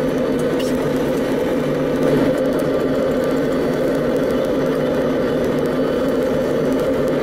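Steady engine drone of a passenger ferry under way, heard inside the cabin: a loud, even hum of several constant low tones over a rushing noise.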